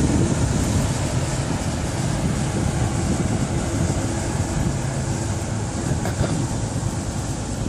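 Steady, loud rushing rumble of wind buffeting the microphone, with a faint high steady whine above it.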